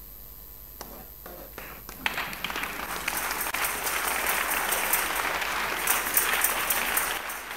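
Congregation applauding: a few scattered claps, then clapping swelling about two seconds in and fading near the end.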